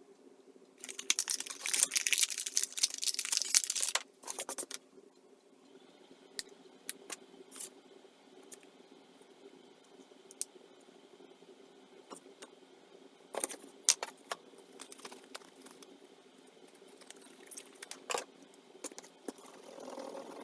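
Small hard objects being handled: a few seconds of rustling and clattering near the start, then scattered light clicks and taps, with another short cluster about two-thirds of the way through.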